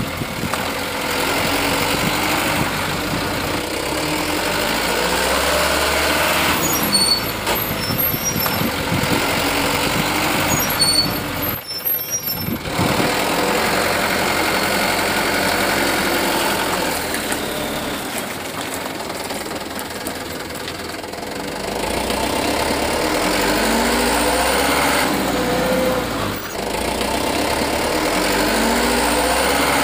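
Truck engine running, its revs rising and falling, with a brief break about twelve seconds in.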